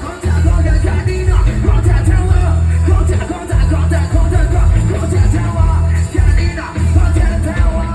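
Loud amplified band music with heavy bass and a singing voice; the bass drops out briefly a few times.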